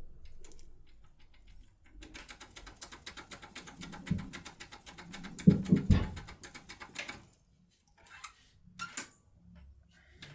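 Rapid clicking of a foil impression lock pick being wobbled up and down under tension inside an ARCU pin-tumbler cylinder, the pins and tool clattering for about five seconds, with a few heavier knocks near the middle and two short rattles near the end.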